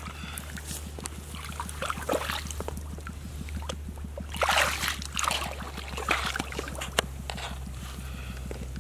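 Bare hands splashing and sweeping through shallow muddy water while groping for fish, in irregular bursts that are loudest about four and a half and six seconds in, with a sharp click near the end. A steady low hum runs underneath.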